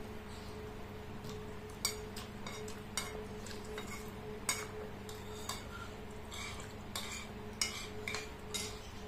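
Metal spoon and fork clinking and scraping against ceramic bowls while eating, a dozen or so sharp, irregular clinks, over a steady low hum.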